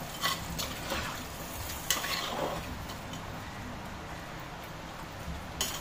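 Chicken cooking in masala with a little water, sizzling in a pan on the stove, with a few light clicks.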